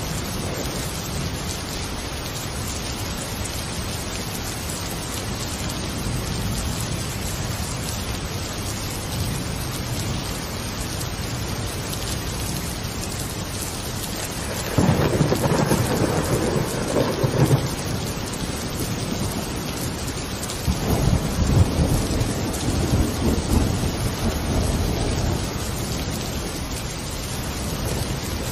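Steady rain with thunder rolling in twice, the first about halfway through and the second a few seconds later.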